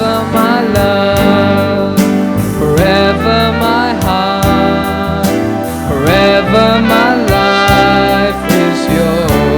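Trumpet playing a slow worship-song melody over keyboard chords and a steady beat, in an instrumental passage between sung verses.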